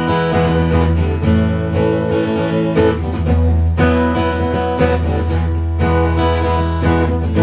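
Acoustic-electric guitar played through an amplifier, strummed chords ringing out with a fresh strum about every second, its pickup working again after repair.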